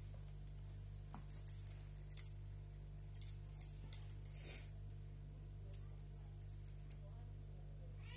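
Scattered light clicks and taps, bunched in the first half, over a steady low hum.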